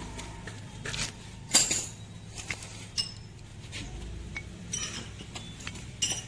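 Steel gearbox parts clinking as a gear and synchronizer ring are handled and seated onto a Maruti Suzuki Ertiga's splined transmission mainshaft during a synchronizer ring replacement. There are a handful of sharp metallic clinks, and the loudest comes about a second and a half in.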